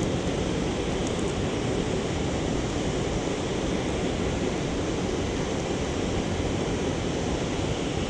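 Steady rushing of a rocky stream's water flowing over rapids.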